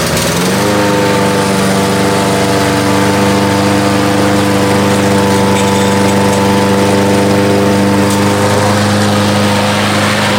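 Lawn mower engine, loud and close to the microphone, picking up speed in the first second and then running at a steady pitch.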